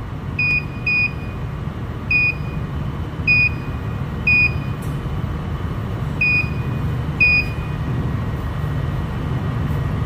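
Key-press beeps from a handheld addressable fire-alarm programmer: seven short, high single-pitch beeps at uneven intervals as its keypad is pressed to set and write a device address, over a steady low rumble.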